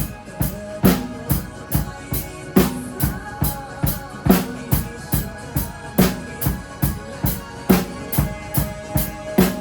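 Drum kit played in a steady beat of kick and snare hits along to a pop song's backing track.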